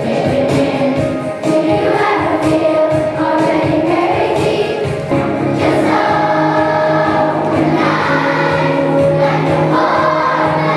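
Children's choir singing together over an accompaniment with a steady beat.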